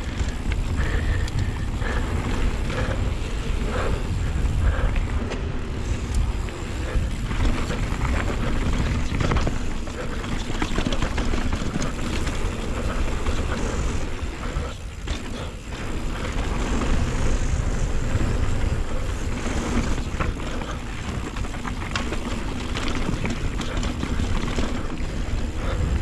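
Wind buffeting the microphone of a chin-mounted action camera during a fast downhill mountain-bike run, a steady heavy rumble, with the clatter of the Scott Ransom full-suspension bike and its tyres over the dirt trail as scattered knocks and rattles.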